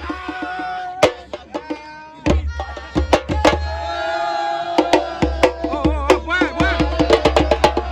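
Music: fast hand-drum percussion with a singing voice over a steady bass.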